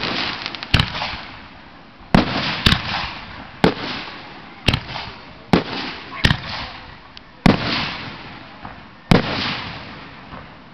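Aerial firework shells bursting overhead: about nine sharp booms, roughly a second apart. Several trail off in a fading crackling hiss, and the bursts thin out toward the end.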